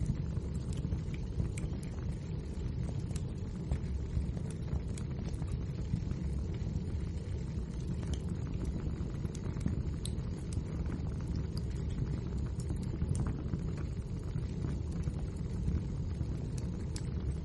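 Wood fire burning in a fireplace: a steady low rumble with frequent sharp crackles and pops scattered irregularly.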